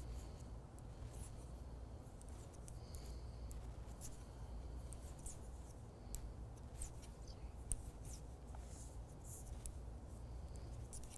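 Knitting needles clicking faintly and yarn rubbing as stitches are knitted, a scatter of small irregular ticks over a low steady room hum.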